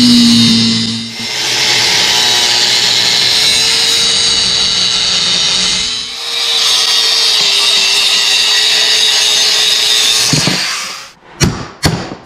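Angle grinder with a cut-off wheel cutting through a steel accelerator-pedal bracket, running steadily with two brief dips, then stopping near the end. A few sharp knocks follow as it is set down.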